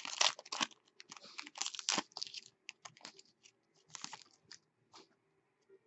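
Hockey trading cards being handled and slid against one another: a quick run of soft papery scrapes and flicks that thins out toward the end.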